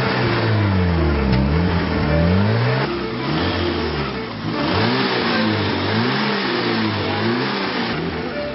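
An old small hatchback's engine being revved repeatedly in blips, its note rising and falling about once a second.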